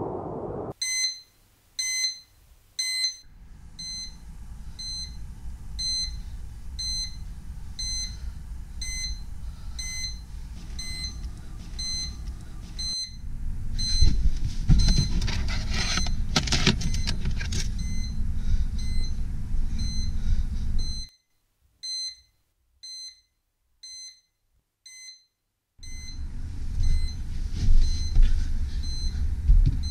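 Electronic alarm beeping, short high beeps about two a second, over a low rumbling drone that swells in the middle, drops out for a few seconds, then returns.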